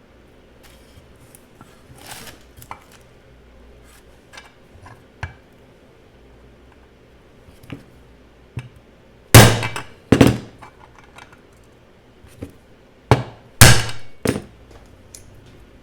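Sharp metal strikes on a socket, driving a needle bearing out of a portable bandsaw's gearbox housing. Light clicks of parts being set up come first, then five loud knocks: two about nine and ten seconds in, three more around thirteen to fourteen seconds in.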